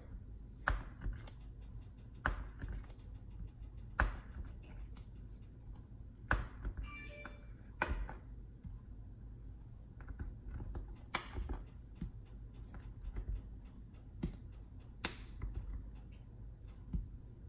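Chef's knife chopping down through a stack of flour tortillas, cutting them into strips, each stroke ending in a sharp knock of the blade on the granite countertop. The knocks come singly and irregularly, about one to three seconds apart.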